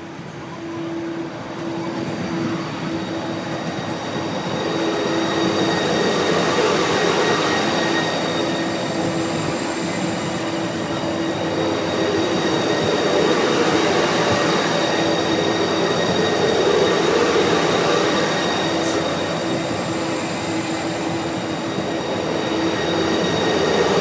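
Vande Bharat Express electric multiple-unit train passing through a station at high speed: a loud rush of wheel and rail noise that builds over the first few seconds and then stays loud, with a steady hum running under it.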